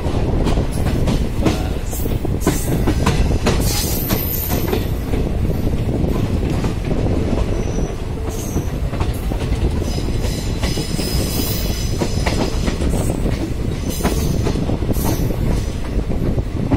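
Passenger train coach running on the track: a steady rumble with the wheels clicking over rail joints, and brief high metallic squeals from the wheels about four seconds in and again around ten to twelve seconds in.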